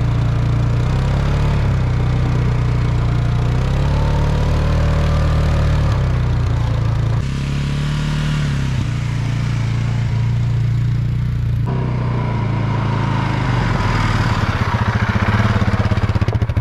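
Polaris ATV engine running under load as it tows a heavily loaded log trailer through snow. The engine note rises and falls in pitch, then grows louder and pulses rapidly near the end.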